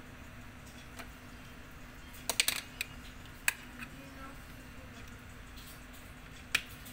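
Light clicks and taps of art tools being handled, picked up and set down on the tabletop: a quick cluster of clicks a little over two seconds in, then single clicks about a second later and near the end.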